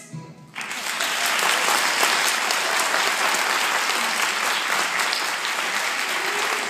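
Audience applauding at the end of a song, breaking out about half a second in just after the music stops and holding steady and loud.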